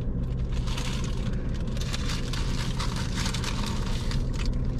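Steady low hum inside a car with its engine running, with irregular crinkling of sandwich foil and paper wrapping.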